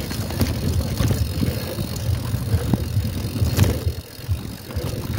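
A mountain bike running over rough trail, with a low rumble and scattered clicks and rattling knocks from the bike. One sharper knock comes about three and a half seconds in.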